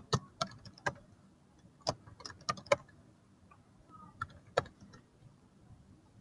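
Computer keyboard keys tapped in short, irregular runs as a login email and password are typed, with a last pair of clicks a little past four seconds in.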